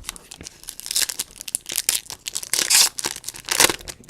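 A foil trading-card pack wrapper being torn open and crinkled, in several crackling bursts, loudest near the end.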